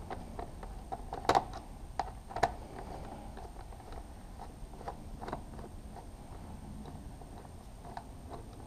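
Irregular light clicks and ticks of a screwdriver and hands working on the plastic fairing of a BMW S1000R. The loudest clicks come in a quick cluster about one and a half seconds in and again near two and a half seconds, with fainter taps spread through the rest.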